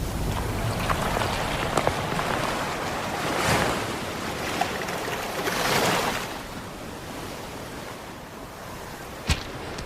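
Film sound effects of rushing surf and wind, swelling twice and then easing off, with a sharp knock near the end.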